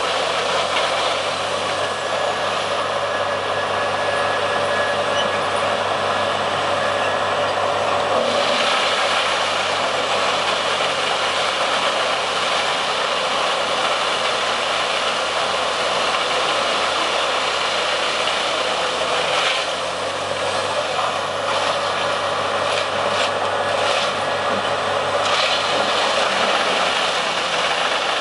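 Morbark Model 30RXL wood chipper running under load, its engine and the chipping of logs making a loud, steady mechanical noise, with a brief dip in level about two-thirds of the way through.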